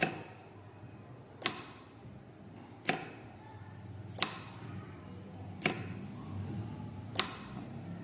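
12-volt solenoid door lock and its relay module clicking as they are switched on and off: six sharp clacks about a second and a half apart, the lock's bolt moving with each one.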